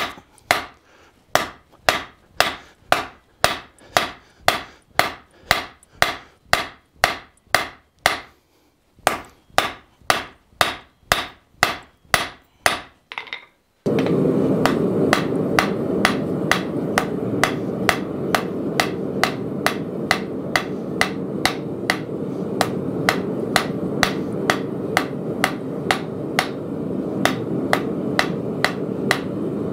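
Hand hammer striking a red-hot steel bar on an anvil, a steady run of blows about two to three a second, each with a short metallic ring. There is a brief pause about eight seconds in. From about fourteen seconds a steady low rushing noise sits under quicker blows.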